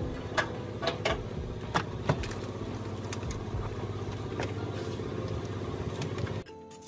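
A machine running with a steady hum, with sharp clicks and knocks over it, cutting off suddenly near the end.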